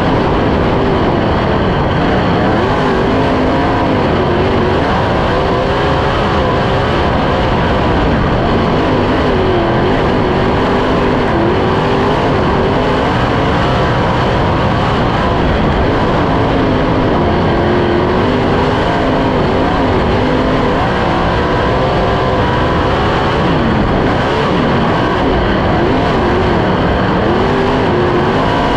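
Onboard sound of a 410 sprint car's methanol-fuelled V8 running at racing speed on a dirt oval, its pitch wavering up and down every second or two as the throttle is worked, over a steady rush of wind and track noise.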